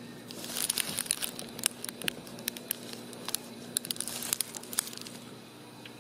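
A ragdoll kitten scrambling about inside a hard plastic toy car: a fast, irregular run of sharp clicks and crinkles, which starts about half a second in and dies away near the end.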